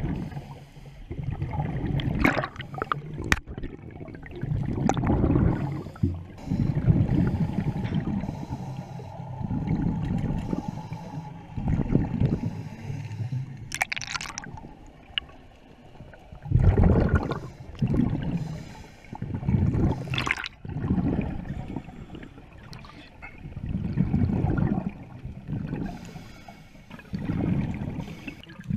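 Scuba regulator breathing underwater: exhaled bubbles gurgle past the microphone in swells every couple of seconds, with a few sharp clicks.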